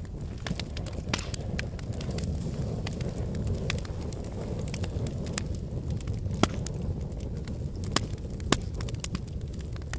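Campfire crackling: irregular sharp pops and snaps over a low steady rumble, with a few louder pops in the second half.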